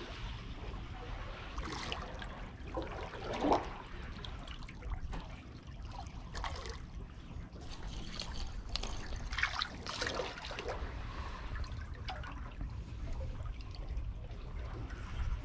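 Seawater lapping and trickling in the gaps between concrete tetrapod blocks, with uneven gurgles and small splashes.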